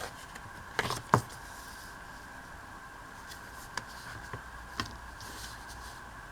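Paper being handled while cutting craft scraps: two sharp clicks or taps about a second in, then a few faint ticks over a steady faint background hum.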